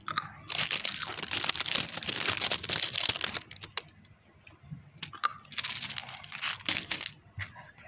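Plastic candy wrappers and snack packaging crinkling and crackling as they are handled, in two stretches: a long one in the first half and a shorter one near the end.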